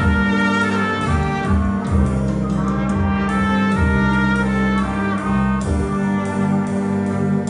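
Live ensemble music: a military wind band with saxophones and brass, joined by acoustic guitar and drums, playing an instrumental passage of a Greek song.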